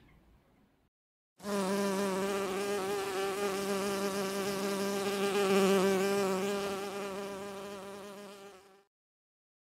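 A bee buzzing: one steady, slightly wavering drone that starts suddenly about a second and a half in, swells a little past the middle, then fades out near the end.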